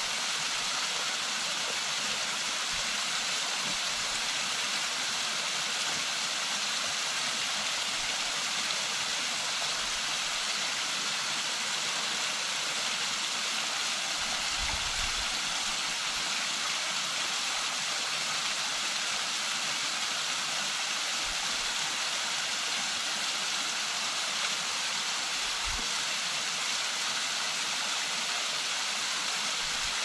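A cascading mountain waterfall spilling down stepped rock, making a steady, even rush of water.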